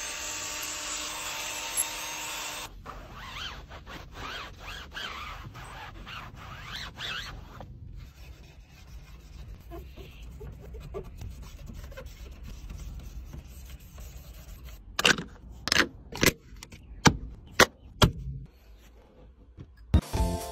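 A cordless drill with a scrub brush whirs against carpet for the first two to three seconds. Then comes close rubbing and scratching of hand-cleaning on a car's dashboard touchscreen. Near the end there is a run of about six sharp taps.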